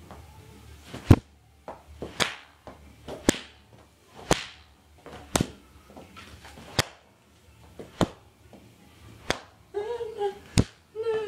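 A dressing gown swung and snapped like a whip, giving sharp cracks about once a second, nine in all, some with a short swish. A person starts humming near the end.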